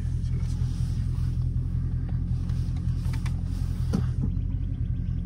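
Dodge Charger SRT 392's 6.4-litre HEMI V8 heard from inside the cabin while driving: a steady low drone, with a few faint clicks about three to four seconds in.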